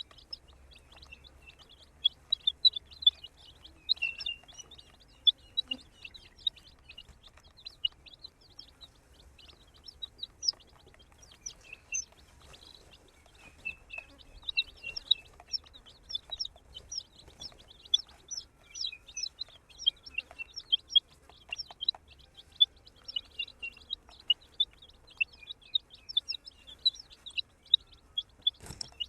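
A group of baby chicks peeping continuously: many short, high chirps overlapping.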